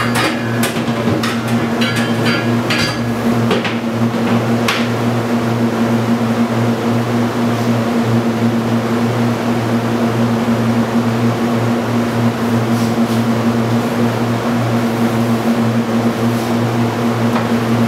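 Steady, loud machine hum with a strong low pitch, with a few sharp clicks and knocks in the first five seconds.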